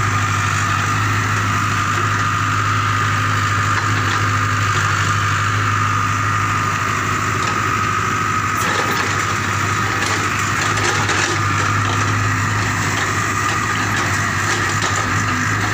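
JCB compact excavator's diesel engine running steadily with a constant high whine, while the bucket digs through soil and tree roots; a few sharp cracks and knocks come about nine to eleven seconds in.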